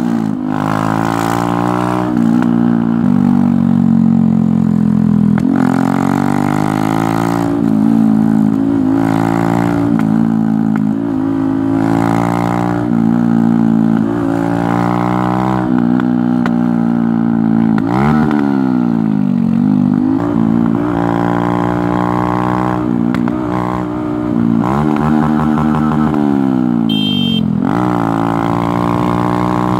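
Honda Grom (MSX125) 125cc single-cylinder engine running while riding, its pitch climbing steadily and several times dropping and then rising again as the bike slows and picks up speed.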